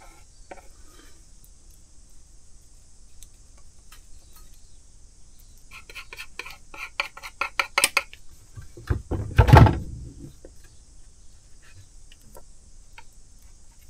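Hand tools clicking, tapping and scraping against a wooden oar as epoxy glue is forced into a split: a quick run of light clicks about six to eight seconds in, then one louder thump about a second and a half later.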